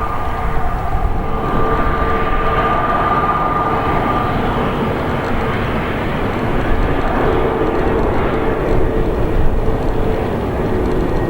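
Jet engines of an Airbus A320neo running loud and steady, with a high whine that fades out about four seconds in and a lower hum throughout.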